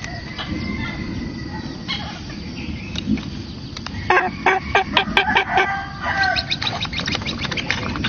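Oriental pied hornbills calling at their nest: a few scattered notes, then a fast run of repeated calls about halfway through and a second run soon after, over steady low background noise.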